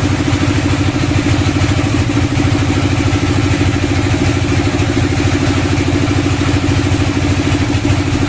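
Log bandsaw mill's engine running steadily at idle, with a rapid, even pulse.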